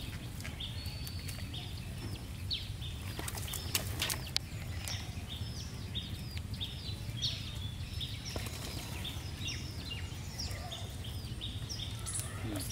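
Small birds chirping over a low steady background hum, with many short high chirps repeating throughout. A few sharp clicks and rustles come from fish being pulled out of a wet nylon cast net by hand.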